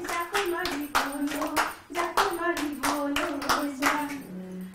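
A group of women clapping their hands in a steady rhythm, about three claps a second, while voices sing along. The clapping drops out briefly near the end, then starts again.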